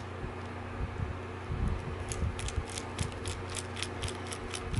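Micro screwdriver backing a tiny screw out of a compact camera's lens and CCD assembly, giving a quick run of light ticks, about six a second, from a little under two seconds in. A faint steady hum lies underneath.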